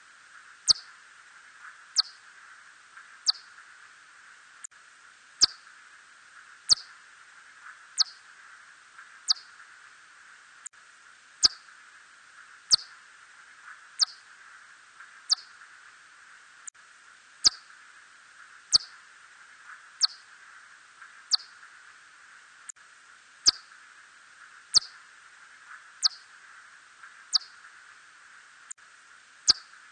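Korean red bat (붉은박쥐, Hodgson's bat) calling: short, sharp chirps that sweep downward in pitch, repeating evenly about every 1.3 seconds over a faint steady hiss.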